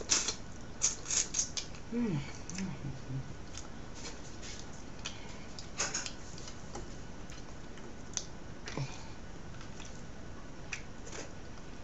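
Close-up eating sounds: a person chewing and picking at grilled fish by hand, with scattered wet mouth clicks and smacks, several close together in the first two seconds. A short falling hum from the eater about two seconds in.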